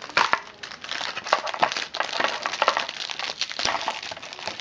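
Thin clear plastic packaging, a small bag and a blister tray, crinkling and crackling as it is handled, with many small irregular clicks.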